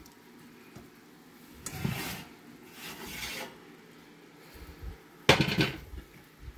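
Metal oven rack and baking pan scraping as the pan is pulled out of the oven: three rasping scrapes, the last and loudest a little past five seconds in.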